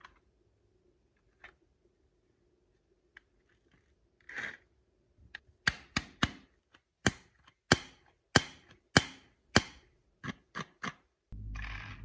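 Marbles clacking through a wooden Cuboro marble run: a few scattered clicks, then a regular series of sharp wooden clacks about one and a half per second, and a few quicker lighter clicks. Near the end a steady electric buzz starts.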